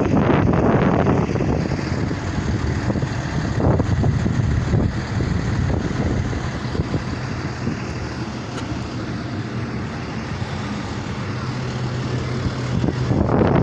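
A school bus engine idling close by, a steady low hum. Wind buffets the microphone, loudest at the start and again near the end.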